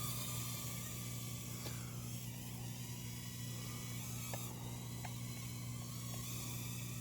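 Thin buzz of a small toy quadcopter's propellers over a steady low electrical hum, with a few light clicks.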